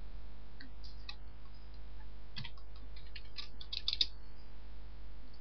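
Computer keyboard typing: a few single keystroke clicks about a second in, then a quick irregular run of clicks from about two and a half to four seconds in, over a steady low hum.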